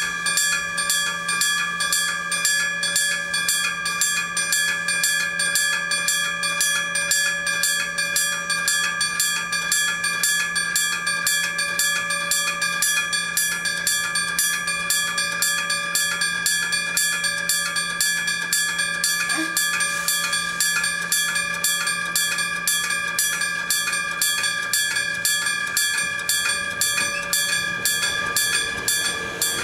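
Old striking-bell type Japanese level crossing signal ringing: a bell struck rapidly and evenly, about five strikes a second, with a steady ringing tone between strikes. A low steady hum lies beneath it and stops a few seconds before the end.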